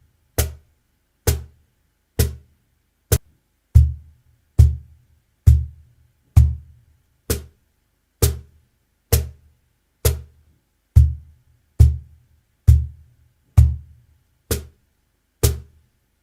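Single strokes played by hand on a cajon, evenly spaced at a little over one a second, each a sharp slap with a short low boom. They are played as groups of four bass strokes and four high strokes, so some hits carry a deeper boom than others.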